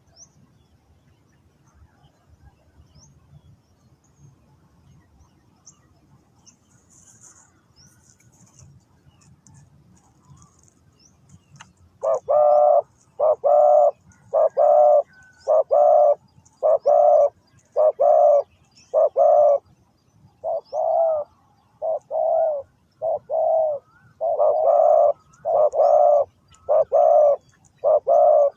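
Spotted dove cooing in a long run of loud, evenly spaced coos, about one a second, starting roughly halfway through. Before that there are only faint chirps of small birds.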